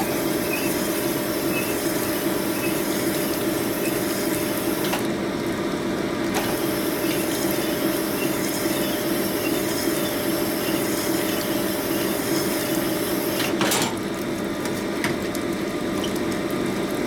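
Sunnen cylinder-honing machine running, its stones spinning inside a Harley-Davidson Knucklehead cylinder that is stroked back and forth over the mandrel by hand, with the honing-oil pump and flowing oil making a steady wet hum. A single sharp clack comes near the end.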